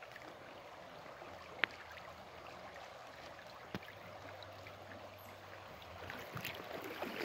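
Shallow river running over gravel, a steady soft rush of water, with a sharp click about a second and a half in and a fainter one a couple of seconds later.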